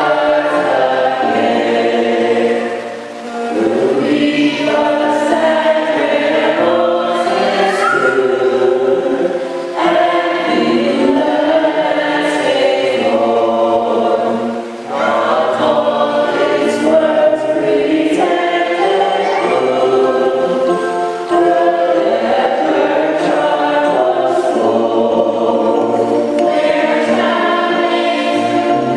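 Choir singing, several voices together in sustained sung phrases, with brief breaks between phrases a few seconds in and about halfway through.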